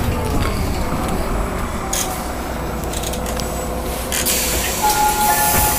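Solaris Urbino 18 articulated city bus heard from inside the passenger cabin while driving: a steady low rumble of the drivetrain and tyres with a few knocks and rattles. Near the end a couple of steady high tones come in one after another.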